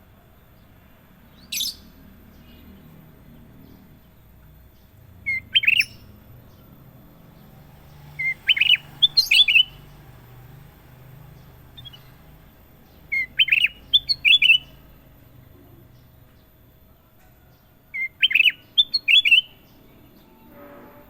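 Kutilang emas (a bulbul) singing: one short note, then four short phrases of quick, clear whistled notes, about one phrase every four to five seconds.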